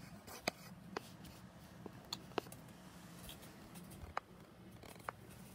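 Faint handling noise: a few soft, scattered clicks and rustles as the phone is moved about, over a low steady hum.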